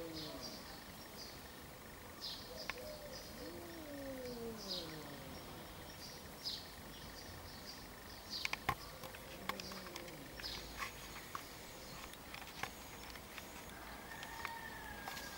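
Small birds chirping in short high notes, with a few drawn-out low calls that slide down in pitch in the first few seconds. A couple of sharp clicks sound just past halfway.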